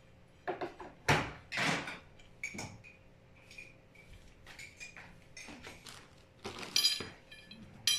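Metal shelf poles of a storage rack clinking and knocking as they are handled and fitted together: a run of sharp clanks with a short metallic ring, the loudest about a second in and another near the end.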